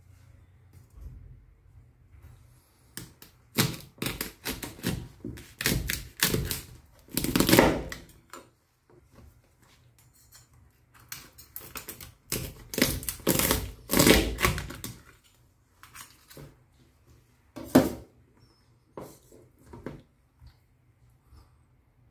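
Chef's knife cutting lengthwise through a Boston lobster's shell on a cutting board: rapid clusters of cracking and crunching, with knocks of the blade, in two long bouts and then one sharp crack near the end.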